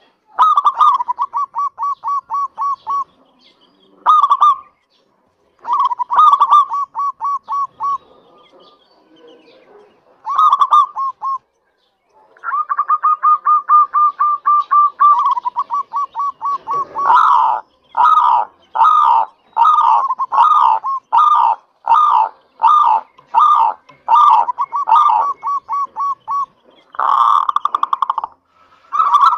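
Zebra dove (local perkutut) singing in full song: several short runs of quick staccato coo notes with brief pauses between, then, about halfway through, a long series of louder, slower notes about two a second.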